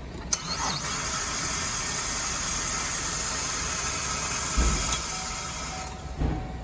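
Starting attempt on a 2014 Chevy Malibu with a failing starter: a sharp click, then a steady hissing whir for about five seconds that fades out without the engine catching. Two low thumps come near the end.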